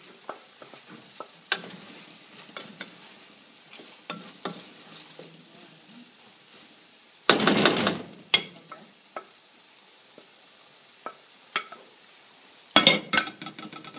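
Wooden spoon stirring sausages and peas in a metal pan over a faint sizzle, with scattered knocks of the spoon against the pan. A louder clatter comes a little past halfway, and a quick cluster of knocks near the end.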